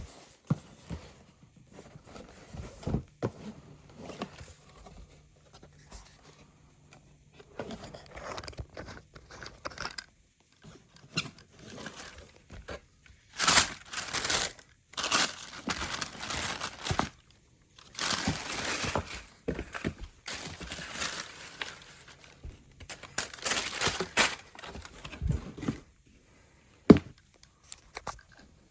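Paper packaging crinkling and rustling in irregular bursts as a shoebox is unpacked by hand, with a few sharp knocks near the end.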